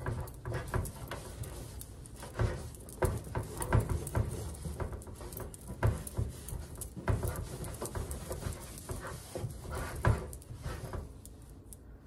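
Towel scrubbing and wiping the metal back panel of a toaster oven: irregular rubbing strokes with knocks against the casing, dying away near the end.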